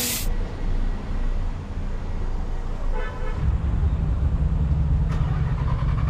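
Road traffic: a short horn toot about three seconds in, then the steady low rumble of a bus engine.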